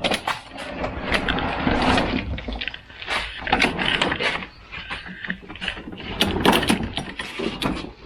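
A run of irregular clattering knocks and rattles from objects being handled and moved about.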